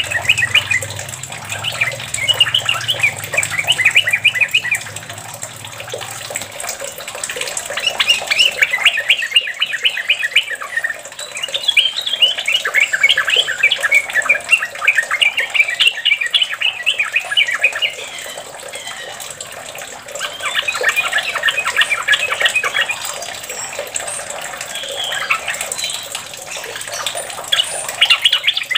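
Yellow-vented bulbul (trucuk) singing its rapid, bubbling chatter in repeated bouts of one to three seconds with short pauses between: the long continuous 'ropel' song.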